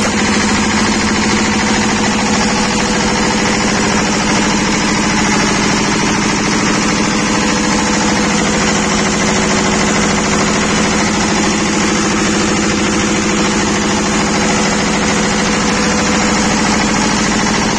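Twin-cylinder diesel engine of a ROXVEL 20 kVA generator set running steadily, a fast, even beat of firing pulses over a strong hum.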